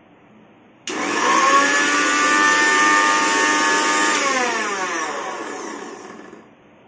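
Flipkart SmartBuy PowerChef Classico 500 W mixer grinder switched on about a second in, running with a steady high motor whine for about three seconds, then switched off and winding down with falling pitch. The owner judges the running sound normal.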